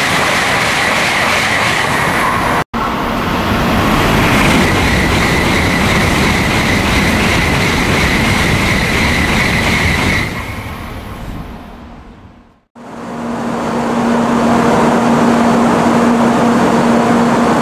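16-car N700-series Shinkansen passing through a station at high speed without stopping: a loud, steady rush of wind and wheel noise with a high whine, dying away over its last couple of seconds. After a sudden break, another loud rushing sound with a low steady hum builds up.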